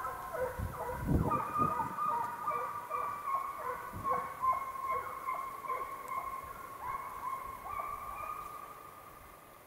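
Pack of Russian hounds giving voice out of sight while running a hare, several long, drawn-out bays overlapping at different pitches and dying away near the end. A low bump is heard about a second in.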